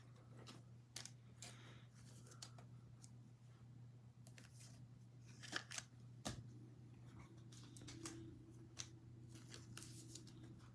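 Faint, scattered rustles and clicks of trading cards and foil pack wrappers being handled as a new pack is opened.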